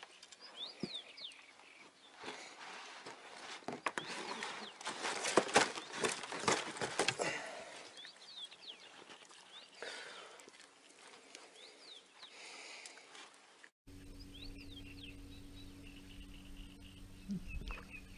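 Small birds chirping in short calls every few seconds, with a stretch of rustling and knocks that is loudest about five to seven seconds in. After a sudden change near the end, a low steady hum runs under the chirps.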